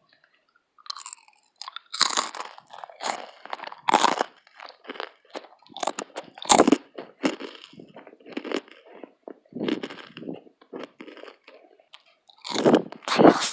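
Close crunching and chewing of Matdongsan, a hard, crisp fried-dough snack, in irregular bites with the loudest crunches about 2, 4 and 6 seconds in.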